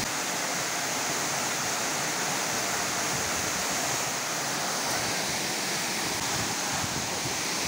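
Waterfall pouring into its plunge pool: a constant, even rush of falling water.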